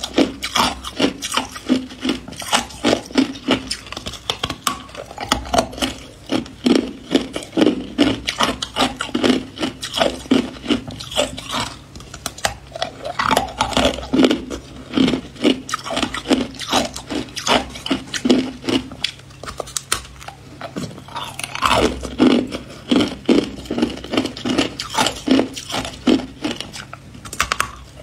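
Close-up crunching of hard ice being bitten and chewed: a fast, irregular run of crisp cracks and grinding, with a brief lull about three-quarters of the way through.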